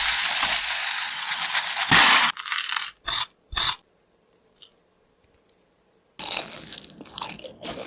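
Chicken legs sizzling in hot oil for about two seconds, then cutting off. A few crisp crunches follow, and from about six seconds in comes steady crunching and tearing as a crispy fried chicken leg is bitten and chewed.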